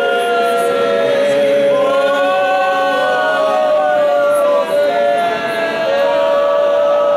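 Choir singing an isiZulu church hymn without instruments, several voices in harmony holding long, drawn-out notes.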